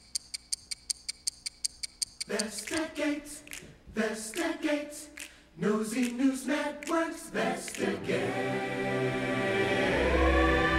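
Rapid, even ticking, about five ticks a second, for the first two seconds. Then a children's choir sings short unaccompanied phrases, followed from about eight seconds by a sustained musical chord that slowly rises, with a deep bass entering near the end.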